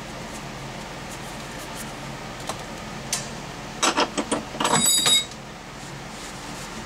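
Metal tools handled on a workbench: a few sharp clicks, then a short clattering, metallic rattle with a brief ring about four to five seconds in, over a steady low hum.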